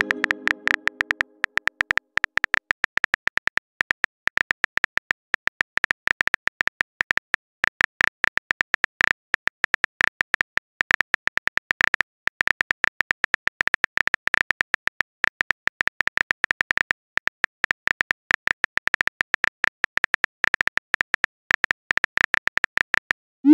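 Phone on-screen keyboard click sounds, tapping rapidly at several clicks a second as a text message is typed out. A pitched chime fades away in the first second or so, and a short rising swoosh near the end marks the message being sent.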